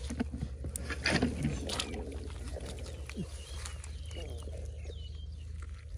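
Shallow water sloshing and splashing in irregular bursts, as from hands and legs moving through flooded field water while catching fish by hand.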